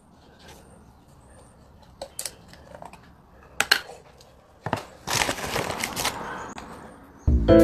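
Close-up eating and handling sounds as raw oysters are taken from a plastic tub and eaten: a few sharp smacks and clicks, then a noisy stretch of about a second. Music with a beat comes in near the end.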